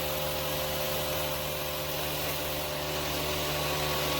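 Machine running steadily: a motor hum holding a few fixed tones, with an even hiss over it.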